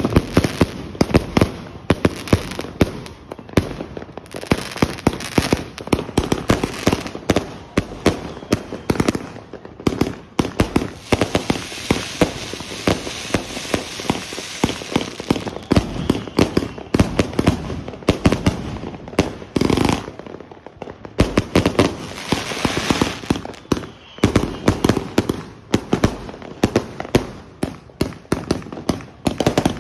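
Samurai Shodown 200-shot firework cake firing a fast, unbroken volley: shots launching and shells bursting with sharp, loud salute bangs, several a second. The volley breaks off for about a second roughly two-thirds of the way through, then resumes.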